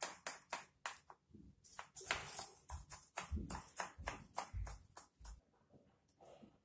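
A knife run around the inside edge of a round steel cake tin to loosen a baked cake, giving many short, irregular scrapes and clicks of the blade against the metal, with a few dull knocks as the tin shifts; they thin out near the end.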